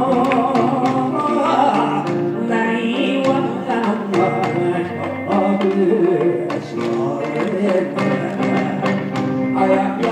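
Live Japanese ondo folk music (Kawachi/Goshu ondo): a man sings into a microphone over instrumental accompaniment punctuated by frequent sharp drum strikes.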